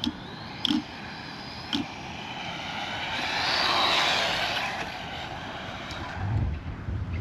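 ZD Racing RX12 RC rally car driving past: its motor whine and tyre noise swell to their loudest about four seconds in and fade again. A few sharp clicks come in the first two seconds, and low thuds near the end.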